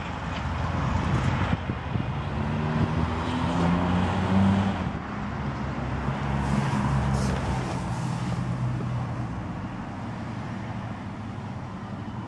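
A car engine running with a low, steady hum. It swells and rises a little in pitch about four seconds in, then settles back down.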